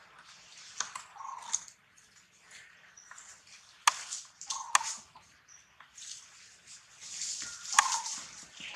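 Young long-tailed macaques scuffling on dry leaf litter: rustling leaves, a few sharp clicks, and brief squeaky calls about a second in, near the middle and near the end.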